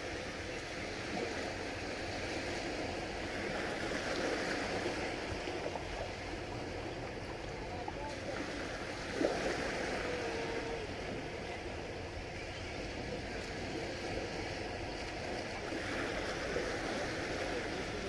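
Small waves on a calm Mediterranean sea washing steadily onto the beach, swelling and easing gently. A short sharp sound stands out about nine seconds in, with a faint brief tone just after it.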